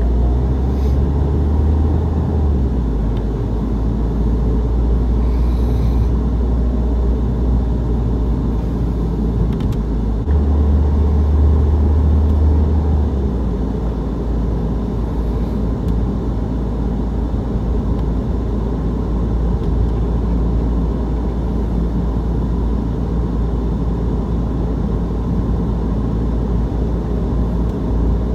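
Steady low engine and road rumble heard inside the cabin of a Mini Countryman SD diesel on the move. The deep rumble is louder for the first couple of seconds, and again for about three seconds starting around ten seconds in.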